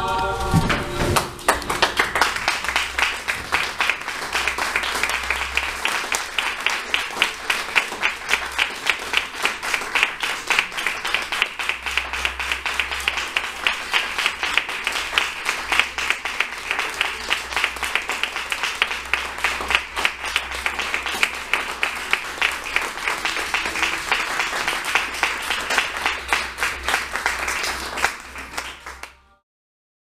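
Audience applauding with dense, steady clapping, after music ends about a second in. The applause fades out near the end and gives way to silence.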